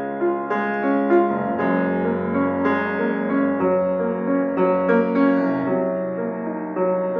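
Grand piano played solo: a steady stream of notes over held low notes.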